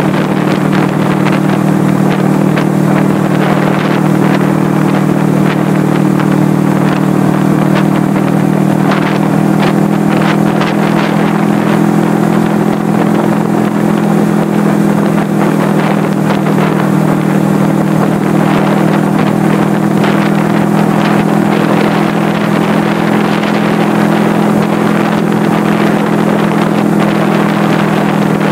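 1979 Suzuki GS425L parallel-twin engine running at a steady cruise, its pitch holding even, heard from the rider's jacket pocket with wind rushing over the microphone.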